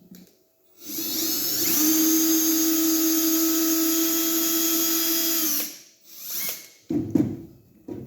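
Milwaukee cordless drill/driver motors whining as they drive 3-inch wood screws into wood in low speed. The pitch climbs and then holds steady for about four seconds, then winds down and stops as the screws seat. A short burst and a couple of knocks follow near the end.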